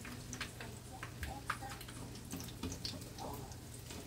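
Egg-battered stuffed chayote slices frying in hot oil in a skillet: a steady sizzle with many quick crackles and pops of the oil.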